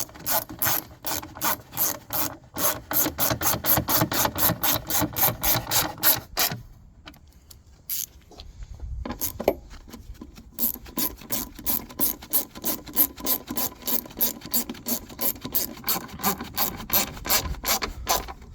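Ratchet wrench clicking rapidly and evenly, about four to five clicks a second, as the lamp cluster's retaining nuts are run down. The clicking stops for a few seconds about six and a half seconds in, then resumes.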